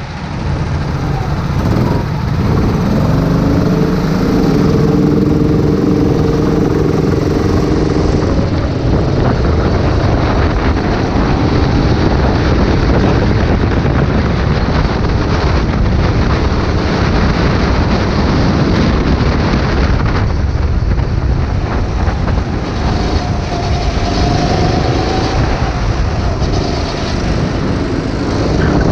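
Sodi rental go-kart's engine pulling away, its note rising over the first several seconds, then running at speed under heavy wind rush on the kart-mounted camera. The engine note climbs again about three-quarters of the way through.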